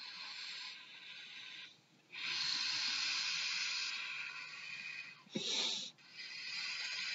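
A person blowing by mouth into the valve of an inflatable camping pillow: long, breathy puffs of air, with a brief pause about two seconds in and a short, sharper breath about five seconds in before the blowing resumes.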